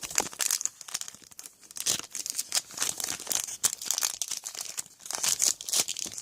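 Trading card pack wrapper crinkling and tearing as it is worked open by hand, in dense, irregular crackles.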